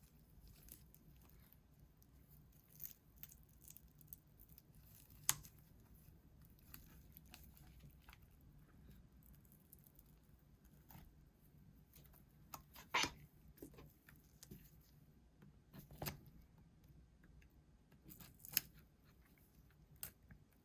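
Faint, scattered clicks and scrapes of a tool working a cracked back glass off a Samsung Galaxy S10 and separating it from its adhesive, with a few sharper clicks standing out.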